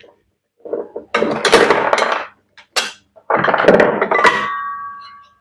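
Metal parts of a top-load washing machine's drum assembly clanking and scraping as a clamp is worked loose. There are a few knocks, and the last leaves a metallic ring that fades out.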